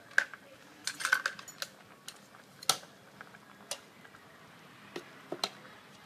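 Metal ladle and spoon clinking against a stainless-steel soup pot and dish while stirring, a scatter of sharp separate clinks with a quick cluster of them about a second in.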